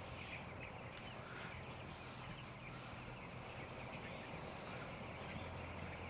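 A large flock of two-week-old broiler chickens chirping, many faint overlapping peeps, over a steady low hum.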